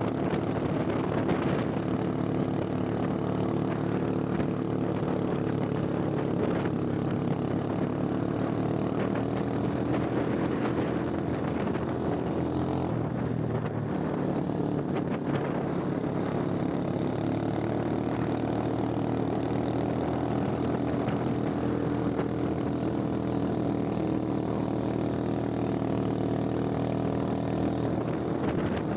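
Motorcycle engine running steadily while riding, its pitch drifting gently up and down as the speed changes.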